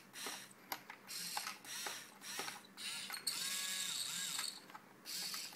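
Small geared motors of a toy robot arm kit run in a series of short, stop-start bursts, whirring and ratcheting through their plastic gearboxes. Their pitch rises as each motor spins up and falls as it stops.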